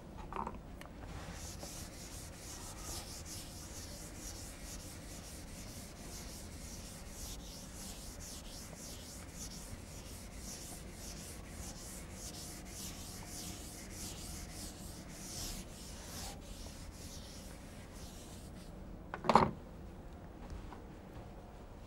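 Chalk scratching on a blackboard as words are written: a long run of fine, rapid scratchy strokes. It stops about nineteen seconds in, and a short, louder vocal sound follows.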